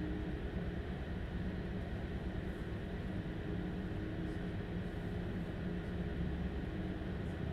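Steady drone of a Stadler Class 755 FLIRT bi-mode train's diesel power pack, heard from inside the train while under way, with a low rumble and a few steady hum tones.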